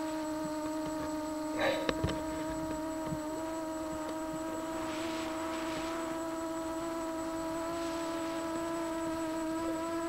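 A steady electric hum holding one pitch, with a few evenly spaced overtones above it, and a brief faint click about two seconds in.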